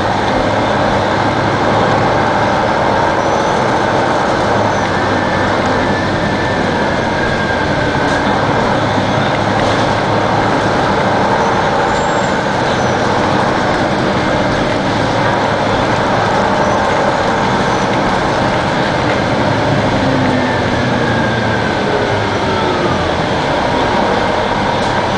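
Detroit Diesel Series 60 diesel engine and Allison B500R automatic transmission of a 2002 Neoplan AN-460 articulated bus running steadily, with a whine that slides down in pitch a few times.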